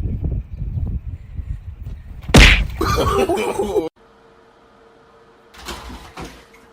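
Low rumbling noise, then a single sharp, loud smack about two and a half seconds in, followed by a second of scuffling noise that cuts off abruptly. After the cut it is quiet apart from a faint steady hum and a few soft knocks.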